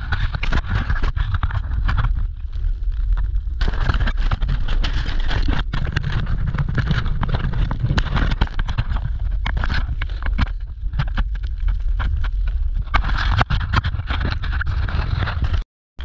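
Loud, steady rumble of wind buffeting an action camera's microphone while a snowboard rides through powder, with the rough scraping and hiss of the board and spraying snow. The sound drops out for a moment near the end.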